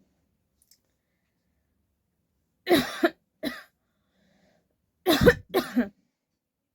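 A person coughing in two bouts of a few sharp coughs each, the first about three seconds in and the second about five seconds in. The coughs are deliberately forced for a challenge, not from illness.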